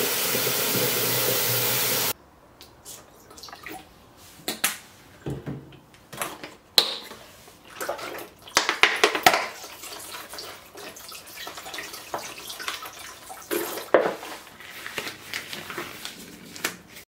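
Water from a kitchen tap running hard into a plastic bucket, cut off sharply about two seconds in. After that come quieter scattered knocks, clicks and handling noises, with a short pour of liquid into the bucket about halfway through.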